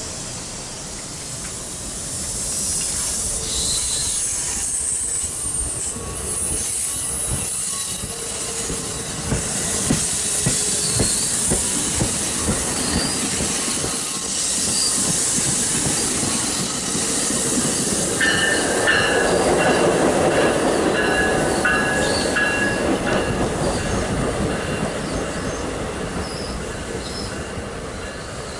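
Train rolling along the rails, its wheels clicking over rail joints, with high wheel squeal setting in about two-thirds of the way through as the noise peaks.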